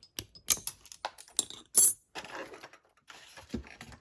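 Small metal padlock parts clinking and rattling by hand: a run of sharp clicks, loudest a little under two seconds in, then scraping and rubbing as the pin-tumbler lock is taken apart.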